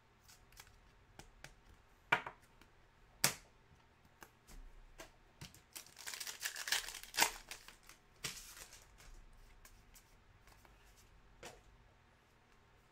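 A foil trading-card pack being torn open, its wrapper crinkling for a few seconds in the middle, as the cards are pulled out. It is preceded by two sharp clicks of cards being handled about two and three seconds in, and followed by fainter rustles of cards being shuffled.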